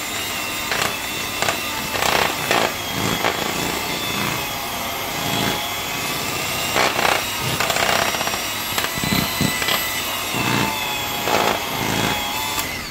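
Electric hand mixer running steadily with a motor whine, its beaters churning thick cream cheese in a plastic bowl with irregular scraping and knocking against the bowl; it stops near the end.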